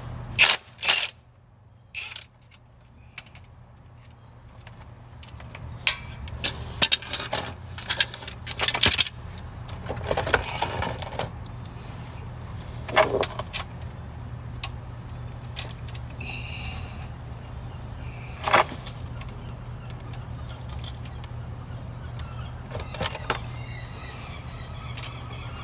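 Metal tools clinking and scraping at irregular moments as an oil drain plug is worked loose, over a steady low hum.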